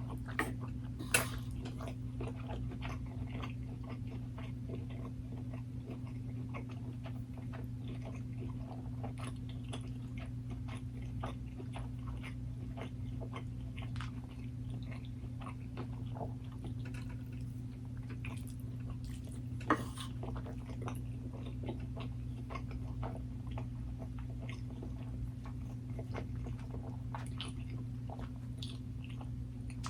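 Close-miked chewing and biting of food, with many small wet mouth clicks, over a steady low hum. Two sharp, louder clicks stand out, one about a second in and one about two-thirds of the way through.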